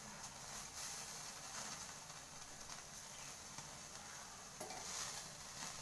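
Marinated chicken pieces sizzling faintly on a wire grill rack over hot charcoal, with a few light clicks of metal tongs as the pieces are turned.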